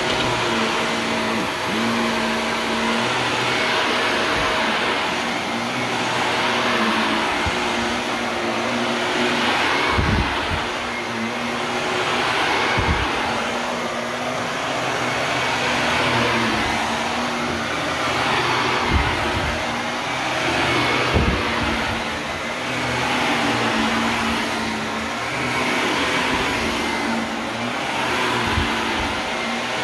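Shark Navigator Lift-Away Deluxe upright vacuum running steadily on a rug, its noise swelling and fading about every two seconds as it is pushed back and forth. A few short low thumps.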